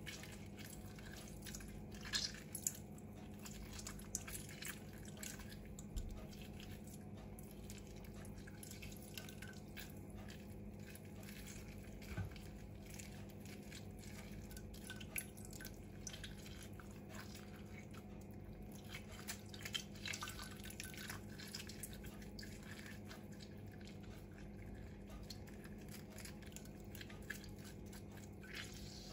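Orange juice dripping and splashing into a stainless steel bowl as orange halves are squeezed by hand, with small squelches from the fruit. A steady low hum lies underneath.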